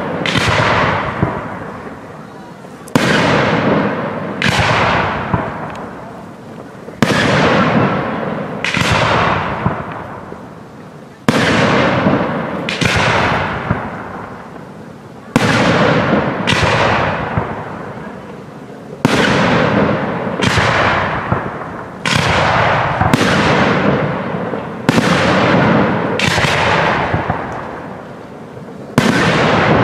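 Aerial firework shells bursting in a steady barrage, a sharp bang every one to three seconds and often two in quick succession, each trailing off in a long rolling echo.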